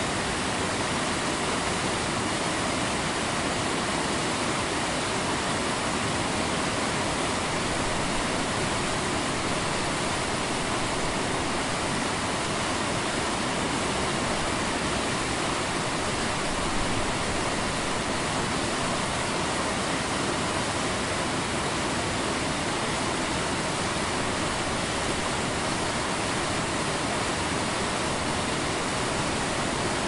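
River rapids: a steady, dense rush of fast-moving water.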